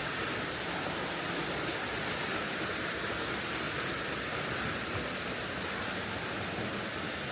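Waterfall rushing nearby: a steady, even roar of falling water.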